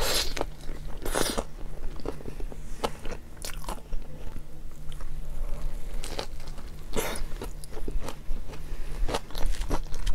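Bites into a hot dog with lettuce in a bun, crunching, then chewing with many small clicks and crunches. The loudest crunches come about a second in and again near seven seconds.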